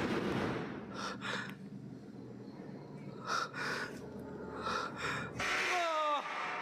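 Breathy gasps or sniffs, three of them about a second and a half apart, then a moan-like tone that falls in pitch near the end: the eerie 'strange sounds' presented as caught on camera.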